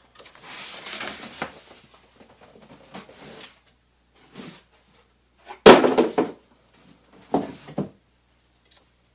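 Cardboard packaging rustling and being handled, then loud knocks and clunks, strongest about six seconds in and again near seven and a half, as the heavy 12-volt electric winch is lifted out of its cardboard box.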